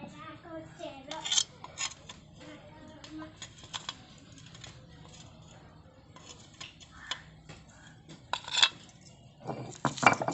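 Metal kitchen utensils clinking and tapping in irregular light strikes, with a few louder clinks, and a busier clatter starting just before the end.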